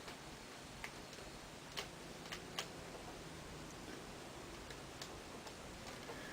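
Faint, sparse ticks and clicks of a small screwdriver and tiny screws being worked into a laptop screen's mounting bracket: a few sharp clicks in the first three seconds, fainter ones later.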